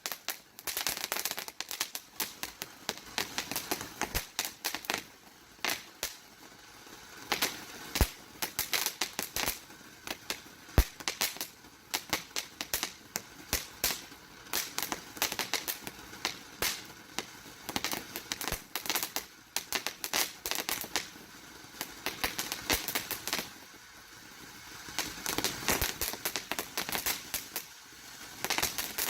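TNT Hot Shot ground fountain firework burning: a steady hiss of the spark shower under dense, irregular crackling pops, in busier spells and thinner ones.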